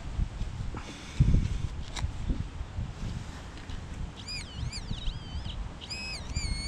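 Handheld pinpointer sounding its tone as it is pushed into a dug hole onto a buried metal target: a tone that wavers up and down in pitch, then a steady held tone near the end. Earlier, a dull thump and scraping of soil.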